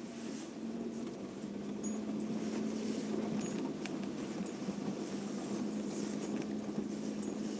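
Car driving slowly along a wet dirt track, heard from inside the cabin: a steady low engine and road hum with scattered light ticks.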